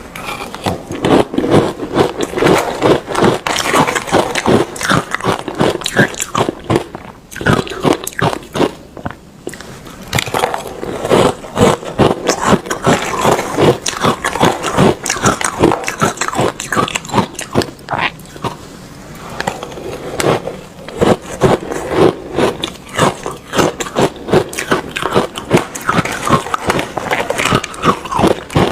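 A person biting and chewing crunchy ice close to the microphone: rapid, loud crunches in long runs, broken by two short lulls.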